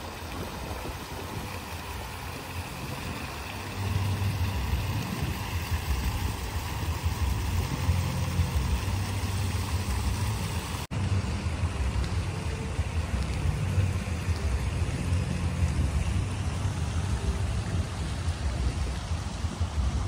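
Fountain jets splashing into an ornamental pool, a steady rushing hiss, under a low rumble that grows louder about four seconds in.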